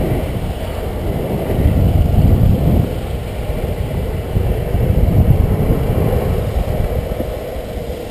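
Longboard wheels rolling fast on asphalt, a steady rumble, with wind gusting over the microphone.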